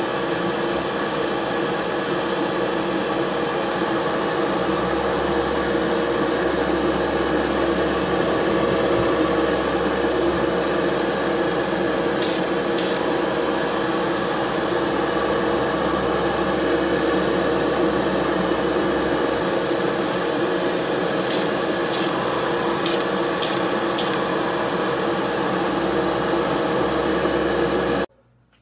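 Steady motor hum of a hobby paint-spraying setup, with short hisses of paint being sprayed onto a die-cast toy car body: two about twelve seconds in, then five quick ones between about 21 and 24 seconds. The hum stops abruptly near the end.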